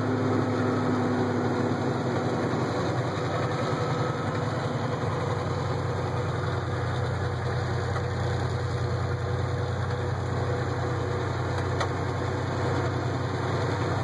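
Vehicle engine and road noise heard from inside the cab while driving, a steady low drone.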